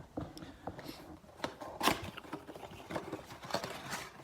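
Trading card pack being opened and the cards handled: a string of irregular small clicks, rustles and crinkles of wrapper and card stock.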